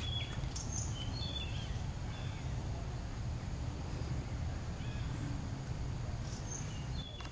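Outdoor background noise: a steady low rumble with a few short, high chirps scattered through it.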